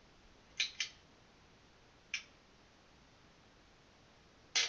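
A few short, sharp clicks over faint room noise: a quick pair about half a second in, a single one near two seconds and a slightly longer one near the end.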